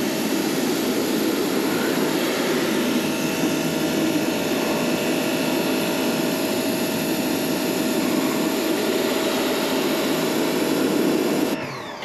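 Pressure washer jet spraying into an HVAC evaporator coil: a loud, steady rush of water spray with the machine running under it, blasting coil cleaner and dirt out through the fins. It stops near the end.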